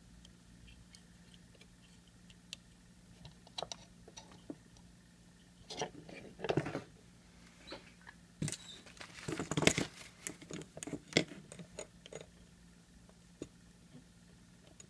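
Scattered clicks, taps and rustling from hands handling a small circuit board and hand tools on a wooden workbench. It is busiest about six to eleven seconds in.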